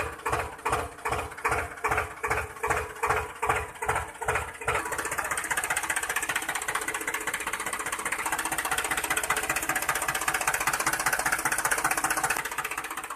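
Mini toy tractor's engine sound: an even, slow chugging of about two beats a second for the first five seconds, then a steady, fast-running buzz that fades near the end.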